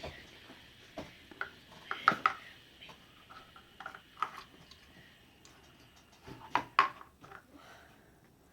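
Scattered light clicks, taps and knocks from Play-Doh and its plastic tools being handled on a tabletop, loudest in a cluster about two seconds in and again near seven seconds.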